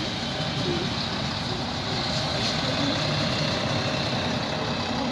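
Single-car DB Regio diesel railcar running past the platform, its engine rumbling steadily as it moves off.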